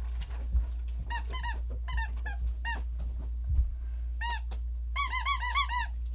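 Puppy whining in short, high-pitched squeaks, coming in small groups from about a second in, with a quick run of about seven near the end, over a steady low hum.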